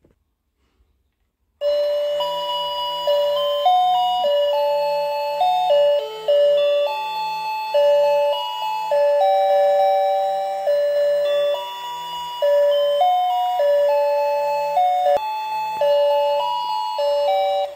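Battery-operated toy ice cream cart playing its built-in electronic tune: a simple beeping melody over a regular bass pulse. It starts about a second and a half in and cuts off near the end.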